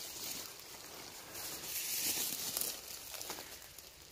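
Dry dead stems and bramble leaves rustling and crackling as someone pushes through dense undergrowth, swelling and fading irregularly.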